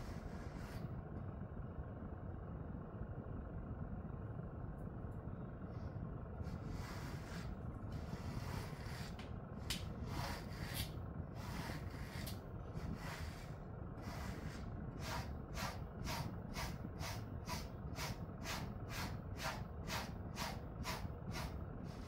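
Pet brush strokes through a Jindo-mix dog's fur, a soft rasping swish with each stroke, over a steady low hum. The strokes are sparse at first, then settle into an even rhythm of about two to three a second from about fifteen seconds in.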